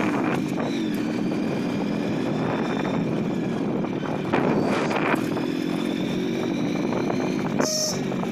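Motorcycle engine running under way, its pitch shifting slightly as the rider varies speed, with rushing wind noise on the microphone that surges around the middle. A short high beep sounds near the end.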